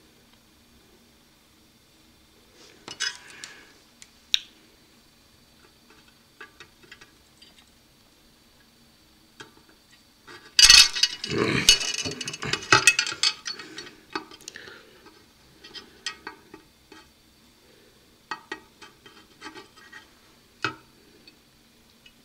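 Small metallic clicks, taps and scrapes of hand soldering: the soldering iron tip and copper wire knocking against a metal antenna plate and its connector. About halfway through comes a louder few seconds of clattering and handling noise.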